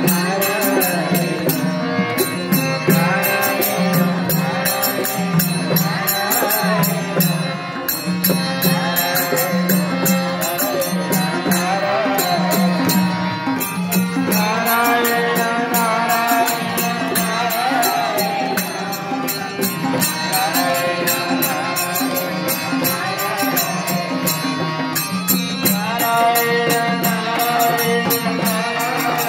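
Devotional bhajan kirtan: a group of voices singing together over a steady, fast beat of hand percussion and clapping.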